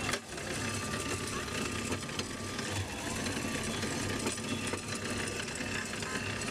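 Steady street background noise of traffic and voices, with a brief clatter right at the start.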